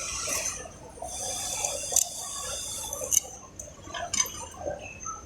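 Three sharp clicks and light rustling from hands and tools working on a single-needle sewing machine.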